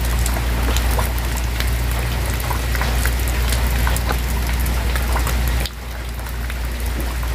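Heavy rain falling steadily, a dense rush with scattered small drips and clicks, over the splashes and light knocks of plastic dishes being scrubbed in a basin of water. Near the end the low rush drops suddenly and the rain sounds lighter.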